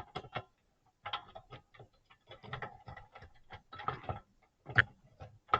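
Irregular small plastic clicks and taps as a CPU cooler's push-pin fasteners are handled and pressed down into the motherboard, with one sharper click near the end.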